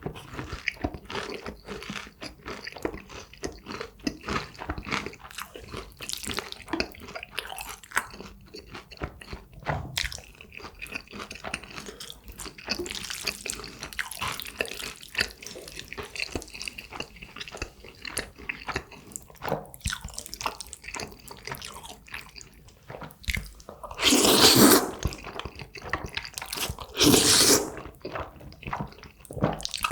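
Close-miked eating of jjajangmyeon and crispy tangsuyuk: steady chewing and crunching with many small mouth clicks, and two louder noisy bursts of about a second each near the end.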